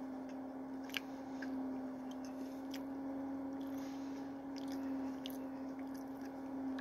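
A person chewing a mini donut with his mouth, with small wet clicks and smacks scattered through, over a steady low hum.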